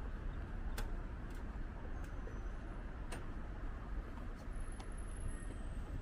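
City street ambience: a steady low rumble of traffic and wind, with a few faint, irregular clicks scattered through it.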